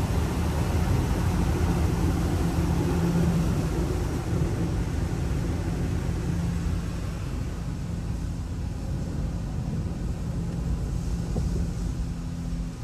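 Ryko Radius HT in-bay automatic car wash running: a steady hiss of water spray over a constant motor or pump hum, the hiss easing off after about six seconds.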